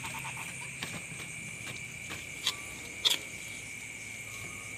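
Steady high chirring of night crickets, with two sharp clacks about two and a half and three seconds in as fried eel is tipped from a wok onto a banana leaf.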